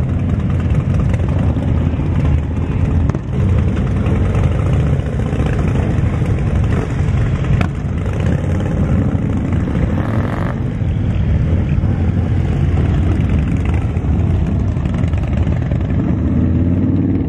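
A group of cruiser and touring motorcycles riding past one after another, their engines rumbling steadily as they pull out of a lot.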